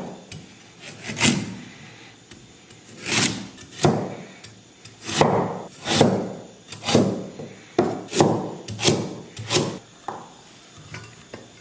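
A knife chopping ginger into small dice on a cutting board: about ten separate strikes at an uneven pace, with the last near the end.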